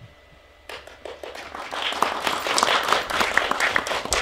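Audience applauding: many hands clapping, starting a moment in and building up.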